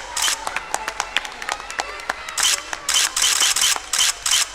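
Camera shutter clicks in a rapid series, most of them packed close together in the second half, over light scattered clapping.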